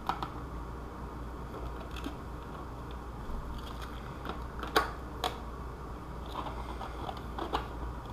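Spring clamps being fitted onto a glued plastic shell: a handful of sharp clicks and snaps as the clamps are opened and closed on it, the two loudest about five seconds in, over a low steady hum.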